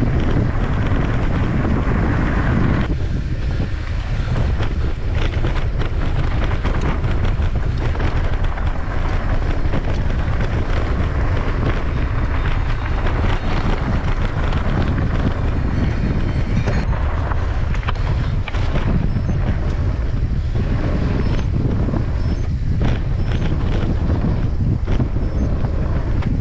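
Wind buffeting the microphone of a handlebar-mounted camera on a moving mountain bike, a steady heavy rumble, with frequent small rattles and crunches from the bike and its tyres rolling over a gravel track.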